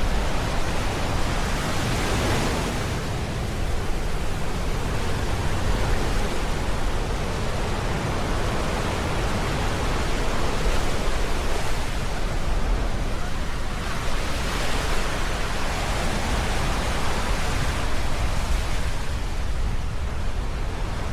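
Sea waves breaking on the shore, a steady rushing with swells every few seconds. Rain and wind noise on the microphone may be mixed in.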